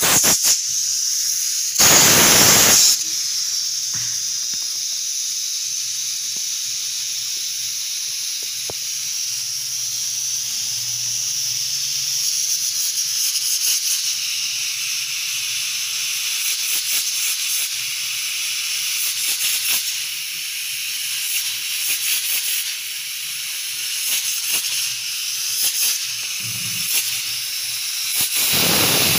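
Stovetop pressure cooker steaming, a steady loud hiss of steam escaping at its weighted valve with fine crackling through it. A much louder rush of steam comes about two seconds in and lasts about a second, and another comes near the end.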